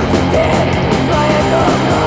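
D-beat crust punk played from a vinyl record: a loud, dense band sound that runs without a break.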